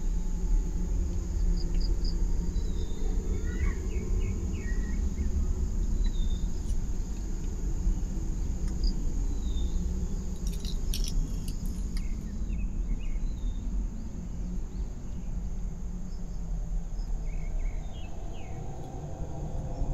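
Steady insect drone with short bird chirps scattered through it, over a loud low rumble. A cluster of sharp clicks comes about ten to twelve seconds in.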